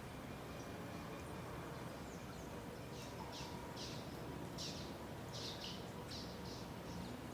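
Birds chirping: a run of about eight short, high chirps beginning about three seconds in, over a steady background hiss.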